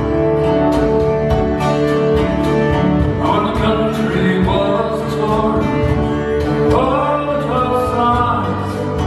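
Live acoustic folk band playing: rhythmically strummed guitar and mandolin-type plucked strings over sustained chords, with a singing voice coming in about three seconds in and again near the end.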